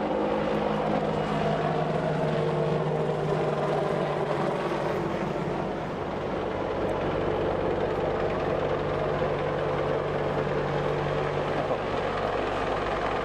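AH-64D Apache Longbow attack helicopter close by as it comes in to land, its twin turboshaft engines and rotor running steadily with a fast rotor beat.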